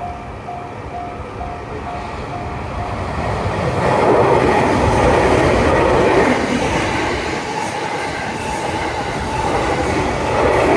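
Japanese level-crossing warning bell ringing in a steady beat of about two and a half strokes a second. About four seconds in, a train passing through the crossing grows loud and covers the bell.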